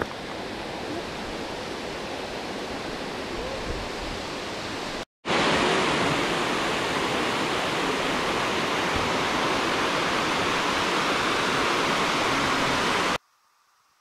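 Waterfall: a steady rush of falling water. It breaks off for an instant about five seconds in and comes back louder, then cuts off suddenly about a second before the end, leaving near silence.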